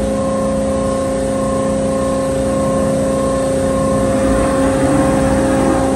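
Behringer HBM440A horizontal bandsaw running under power: a steady mechanical hum with several steady tones, and a fainter higher tone pulsing on and off.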